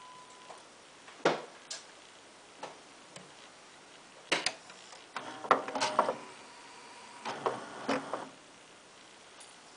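Sony CDP-C345 five-disc CD changer's disc-exchange mechanism at work: a few sharp clicks, then a button click about four seconds in, followed by a run of clacks and short motor whirrs as it moves from disc 4 to disc 5.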